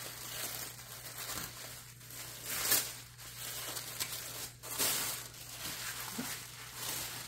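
Thin tissue-paper wrapping rustling and crinkling as hands unfold it, with louder crinkles a little under three seconds in and again near five seconds.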